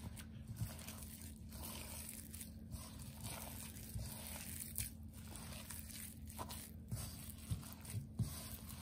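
A hand kneading ground mutton paste into roasted gram flour in a steel pot: faint, irregular squishing and rustling, with a few light clicks.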